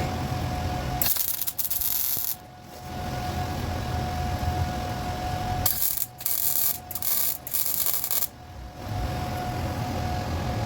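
CO2 (MIG) welder arcing in short bursts on car chassis steel: one hissing, crackling burst of about a second, then a run of several quick tack-weld bursts near the middle, over a steady low workshop hum.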